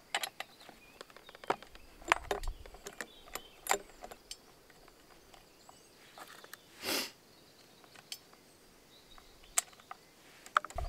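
Scattered sharp knocks and clicks, roughly one a second, with a brief rushing noise about seven seconds in, during a pause in chainsaw cutting.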